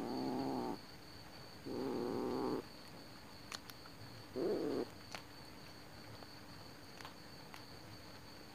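A kitten growling three times, each a low, wavering growl lasting a second or less, with longer pauses between them, while it holds a rat in its mouth.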